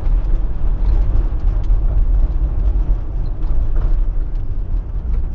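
Steady low rumble of a Fiat Fiorino van's engine and tyres, heard from inside the cabin while it drives along a street.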